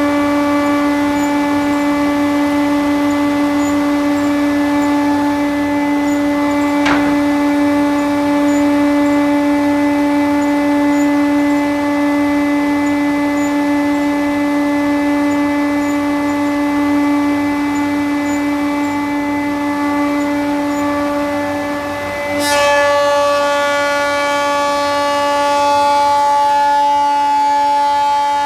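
Industrial thickness planer running with a steady pitched whine while planing a purpleheart beam. A sharp knock comes about a third of the way in. Near three-quarters of the way in there is a brief dip, then another knock, after which the whine changes tone and sounds brighter.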